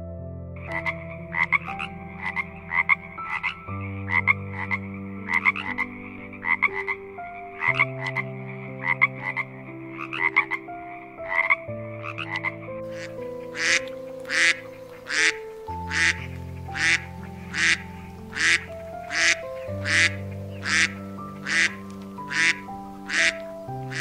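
Frog croaking in repeated pulsed calls over soft background music with slow held notes. For the first half the calls come in a dense rattling run; for the second half they are sharp, evenly spaced croaks about one and a half a second.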